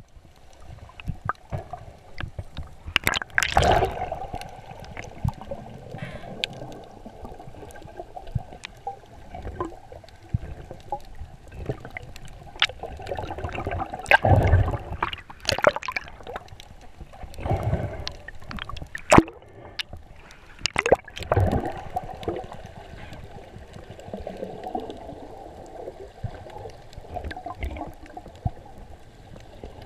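Underwater sound heard through a GoPro's housing: muffled gurgling and sloshing of water that swells several times, with many scattered sharp clicks.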